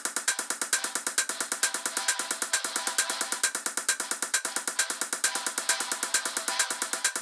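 Background music with a fast, steady electronic drum beat.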